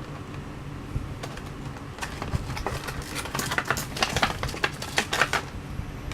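A quick run of small clicks and rattles from a diecast model car being handled and turned over, growing busier about three seconds in and stopping shortly before the end, over a faint steady hum.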